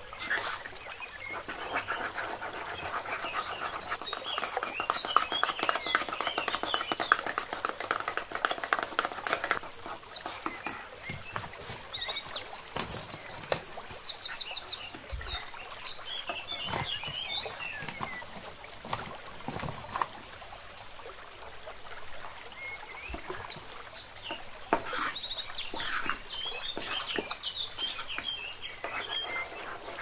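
Metal spoon scraping and clinking against the inside of a ceramic mug as a thick cake batter is stirred. Small birds chirp repeatedly in the background, in short bursts of high notes.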